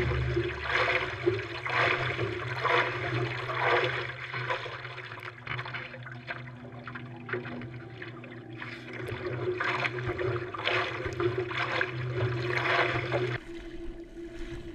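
Paddleboard arm strokes, hands pulling through the water on both sides of the board, splashing and rushing about once a second, softer for a few seconds mid-way.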